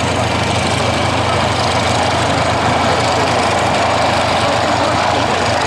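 PZL-Świdnik Mi-2 helicopter flying low past, its twin turboshaft engines and rotors running loud and steady.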